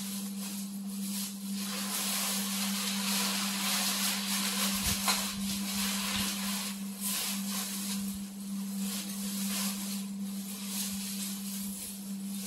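A black plastic garbage bag and the nylon fabric of a deflated inflatable rustling and crinkling unevenly as the inflatable is pulled out of the bag, over a steady low hum.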